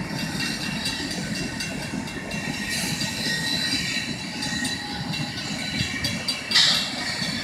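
CSX freight train's tank cars rolling past: a steady rumble and clatter of wheels on rail, with thin high-pitched squeals from the wheels. A brief, loud high-pitched burst stands out about six and a half seconds in.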